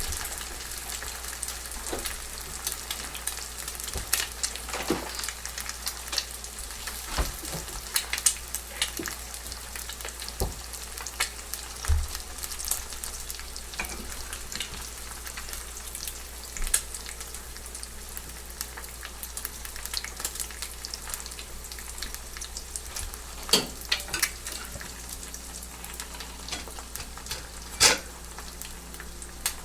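Food frying in a cast iron pan: a steady sizzle with scattered crackles and pops, and a few sharper pops near the end.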